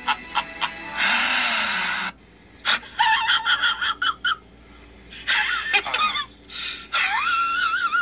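Laughter sound effects: the tail of a demonic laugh, rhythmic 'ha' pulses at about four a second, then a breathy burst. After a short pause comes a high-pitched, wavering laugh in several bouts separated by pauses, the last one long.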